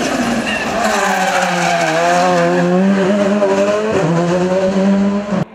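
VW Polo R5 rally car's turbocharged four-cylinder engine running hard through a tight bend, its note wavering slightly, with a brief break about four seconds in. The sound cuts off suddenly just before the end.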